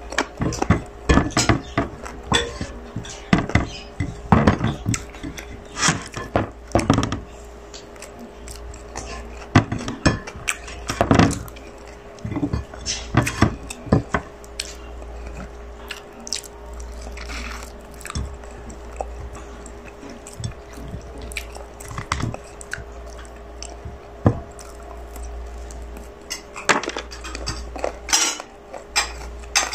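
Eating by hand: chewing on baked chicken with irregular sharp clicks and crackles as fingers pick meat off the bones and tap against the plate.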